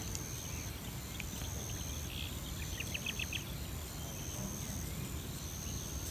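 Insects calling outdoors: a high-pitched buzz repeated in pulses of about half a second, over a steady low rumble. A quick run of short chirps comes about three seconds in.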